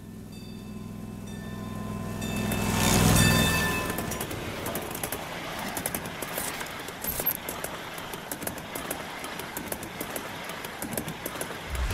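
Ride-on scale train running along the track: a steady low hum that swells into a loud rush about three seconds in, then a rattling run of irregular clicks from the wheels on the rails.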